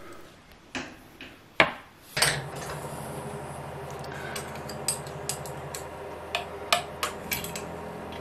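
Sharp metallic clicks and taps as a hardened steel gib screw is handled and fitted into the milling machine's Y-axis, the loudest a single click about one and a half seconds in. From about two seconds in, a steady low hum runs underneath.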